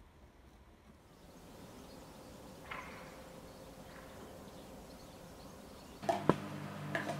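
Faint hiss for most of the stretch. About six seconds in, a steady low hum cuts in with one sharp click, followed by a few lighter knocks.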